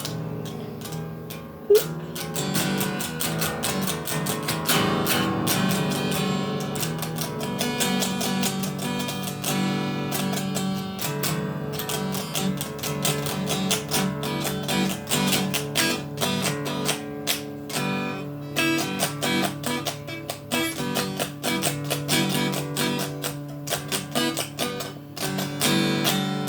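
Instrumental break of a song: fast plucked guitar with strumming over a steady low accompaniment, with a sharp click about two seconds in.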